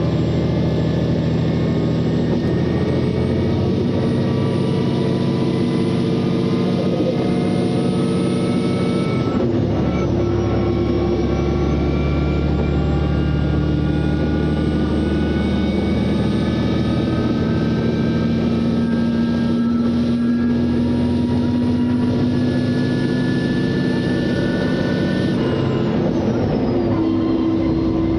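KiHa 120 diesel railcar's Komatsu engine accelerating under power, its note climbing steadily, dropping sharply about nine seconds in, then climbing again and dropping once more near the end.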